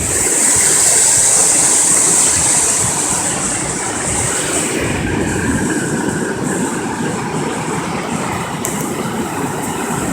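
Flooded creek water rushing over a crossing in a steady, loud wash of noise, with extra hiss in the first four seconds or so.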